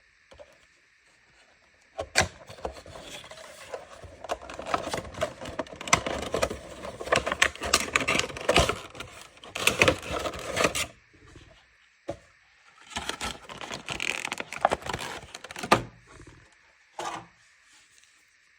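Funko Pop packaging being opened and handled: cardboard and plastic rustling, scraping and clicking in two spells, with a single knock near the end.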